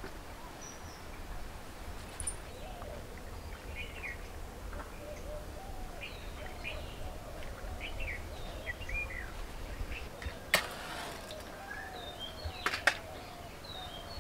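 Birds chirping and calling, many short falling chirps over lower curved calls. Two sharp knocks come in the last few seconds, the second one doubled.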